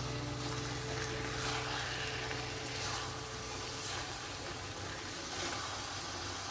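Dill and fenugreek greens cooking in masala in an iron wok, with a steady hiss of frying and three light spatula scrapes as they are stirred. A low held tone fades out over the first few seconds.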